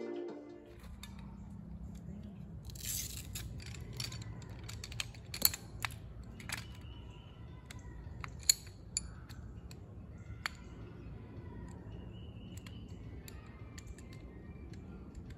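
Shock-corded aluminium poles of a collapsible camp-chair frame being unfolded and snapped into their hub: scattered metallic clicks and clacks, two of them sharp, over a steady low outdoor background.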